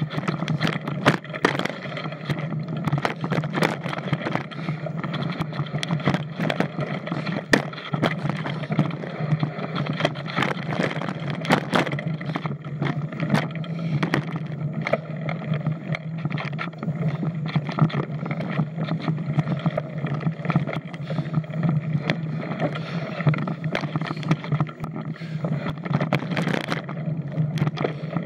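Mountain bike riding fast down a dirt singletrack trail: steady tyre and frame noise with a low hum, broken by frequent sharp knocks and rattles as the bike hits bumps and roots.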